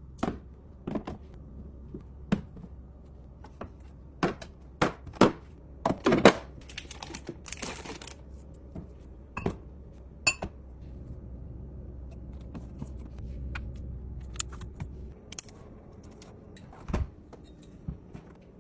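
Drinks and food containers being set down and arranged on fridge shelves: a run of knocks, clinks and thunks, busiest around 4 to 6 seconds in, with a short rustle about 8 seconds in. A steady low hum underneath stops about 15 seconds in.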